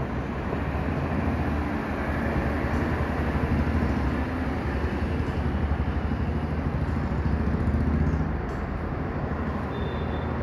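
Steady low rumble of motor traffic, a little louder through the middle and easing off near the end.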